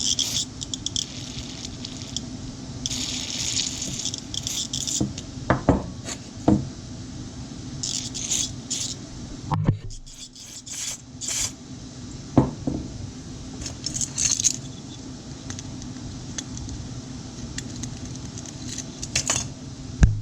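Short bursts of spray hissing, about five times, while small chainsaw carburetor parts are cleaned, with a few sharp clicks and clinks of the parts being handled, over a steady low hum.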